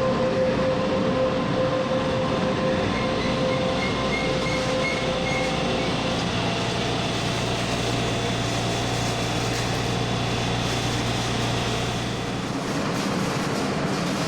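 Taiwan Railway train moving along the rails, a steady rumble with a few faint steady whines over it; a low hum stops about twelve seconds in.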